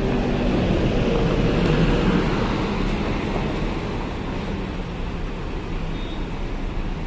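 Intercity bus engine running as the bus moves past, growing louder to a peak about two seconds in and then easing off.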